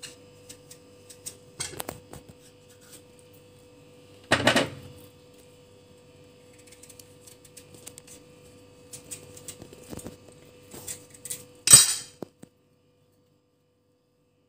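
Knife paring the tough rind and flesh of a honey squash held over a china plate: scattered soft scrapes and clicks, a louder scrape about four seconds in, and a sharp clink of metal on the plate near the end.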